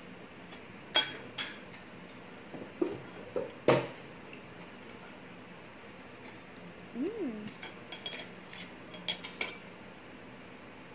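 Metal cutlery clinking and scraping against dishes in scattered knocks. The sharpest come about a second in and near four seconds, and a quicker run of clinks follows between about seven and nine and a half seconds in.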